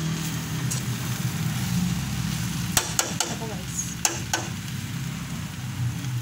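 Finished rice-noodle (bihon) stir-fry sizzling in an aluminium wok while a metal spatula stirs and tosses it, knocking against the pan several times about three seconds in and again around four seconds in. A steady low hum runs underneath.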